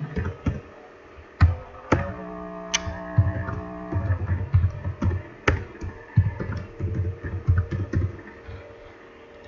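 Computer keyboard keystrokes, tapped irregularly as a password is typed in twice. A short steady tone sounds for about two seconds, from about two seconds in.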